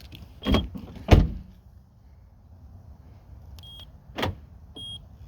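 Short high electronic beeps from a 2015 Honda CR-V, with one heavy thump about a second in and a sharp click about four seconds in. The thump is the little bump of a suspected bad starter that clicks without cranking the engine.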